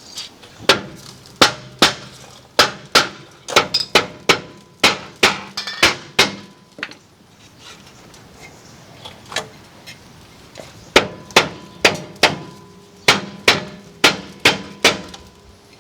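Soft face hammer striking a seized rear brake rotor on a 2001 Ford F150 to knock it loose, about two blows a second with a short metallic ring after each. The blows come in two runs with a pause in the middle. The rotor stays stuck, held on, the owner suspects, by the parking brake shoes.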